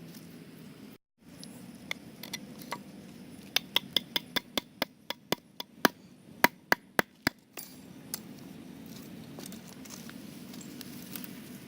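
A quick, irregular series of about fifteen sharp knocks, like chopping or striking wood, starting about two seconds in and ending a little past halfway, over a steady low background hum.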